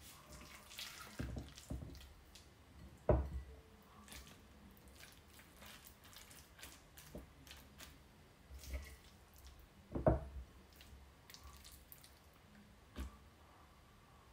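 Silicone spatula scooping chicken salad from a glass mixing bowl onto lettuce in a glass bowl: soft scrapes and wet squishes with scattered light clicks, and two louder knocks about three and ten seconds in.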